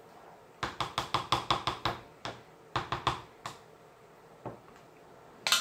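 A quick run of about a dozen light, sharp taps on a square glass casserole dish while the filling is patted down flat. After them come a few scattered taps and one louder click near the end.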